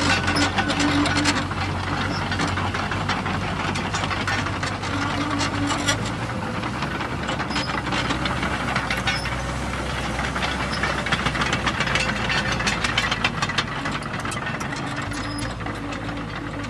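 JCB JS220LC tracked excavator's diesel engine running steadily, with many sharp clicks and knocks from the machine throughout.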